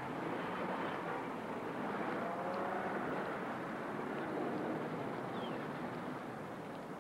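Steady vehicle engine and street-traffic noise, motorcycle included, on an old, hissy TV soundtrack.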